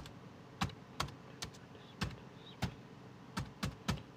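Laptop keyboard being typed on: about nine separate keystrokes at an uneven, unhurried pace.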